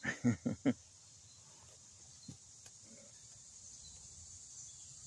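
A man's short laugh, four quick pitched pulses, followed by a faint steady chorus of crickets with one soft knock about two seconds in.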